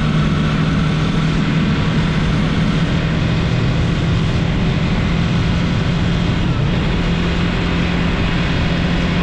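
Yamaha MT-03 motorcycle engine running at a steady pitch while riding, under a constant rush of wind and road noise.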